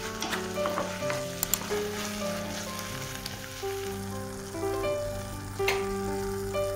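Tomato, egg and ham sizzling in a frying pan, with a wooden spatula stirring and clicking against the pan, mostly in the first second and a half and once more near the end.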